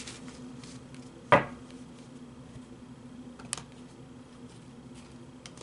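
Tarot cards being handled: one sharp tap about a second in and a lighter click a couple of seconds later, over a faint steady low hum.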